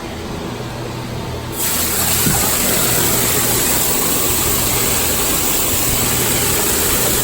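Water starts gushing into a cattle water tank about a second and a half in, a loud, steady rush over a low, steady hum.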